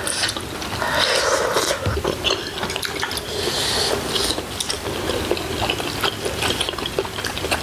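Close-up wet eating sounds of bulgogi hotpot: slurping of broth and glass noodles and chewing, with short clicks of utensils.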